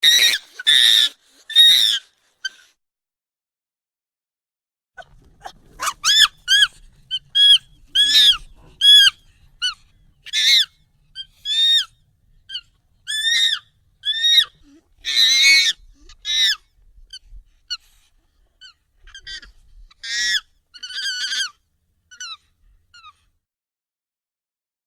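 Monkey calls, sped up and raised in pitch: three high squeals, a gap of about two seconds, then a long run of short high squealing and chirping calls, each arching up and down in pitch, thinning out near the end.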